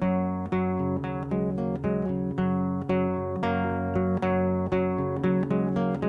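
Acoustic guitar music: plucked chords and notes struck about twice a second, each ringing out and fading.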